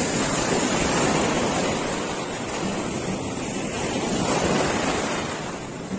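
Small sea waves washing up the beach at the shoreline, the surf swelling twice.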